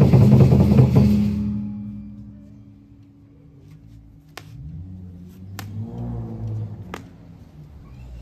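Loud music with drums that fades out about a second and a half in, leaving a quiet stretch broken by a few sharp knocks.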